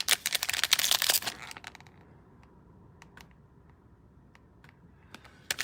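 Trading cards and their plastic pack wrapping being handled: a dense crinkling crackle for about the first second and a half, then a few scattered light clicks.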